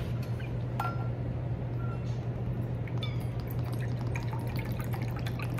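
Hydrogen peroxide poured from its bottle into a stainless steel measuring cup: a steady trickle of liquid with a few light clicks. A steady low hum runs underneath.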